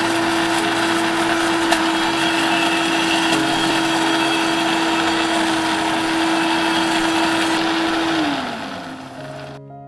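Countertop blender running steadily with a high motor whine while blending the egg-and-oil mayonnaise sauce. About 8 seconds in it is switched off and the whine falls as the motor winds down. Piano music comes in at the very end.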